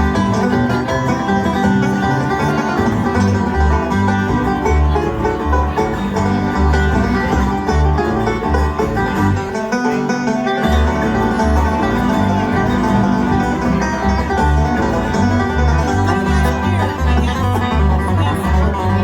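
Bluegrass band playing an instrumental tune: banjo and guitar picking over a bass line marking a steady beat. The bass drops out briefly about halfway through.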